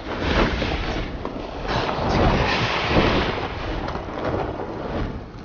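Film sound effects of a swirling sandstorm vortex: a deep rumble under rushing wind, swelling into several whooshes.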